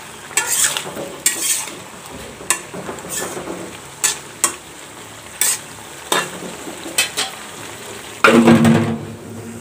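Metal spatula stirring and scraping flat beans and eggplant frying in oil in a metal karai: a steady sizzle with irregular scraping strokes, roughly one or two a second. One louder, brief sound comes near the end.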